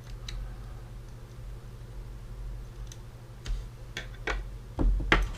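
Small, irregular clicks and taps from handling the camcorder's tiny ribbon-cable connectors, mostly in the second half, over a steady low hum.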